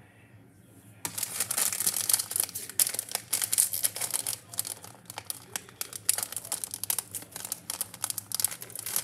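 Crinkling of a plastic single-serve Cheddar Goldfish cracker bag as hands pull and work at it to open it, starting about a second in.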